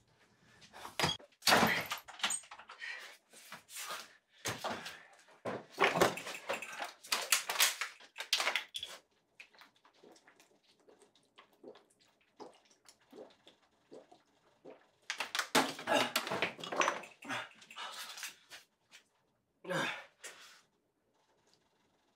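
Hurried rummaging through kitchen cabinets: cabinet doors and objects knocking and clattering, with rustling, in clusters of sharp knocks separated by a quieter stretch near the middle.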